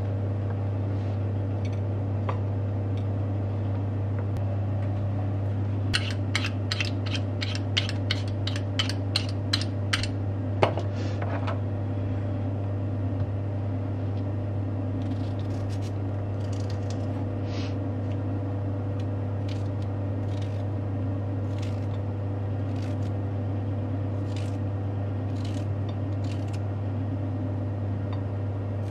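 Kitchen knife cutting green peppers and cucumber on a hard cutting board: a quick run of sharp chops, about three a second, between about six and ten seconds in, then slower, fainter cuts. A steady low hum runs underneath.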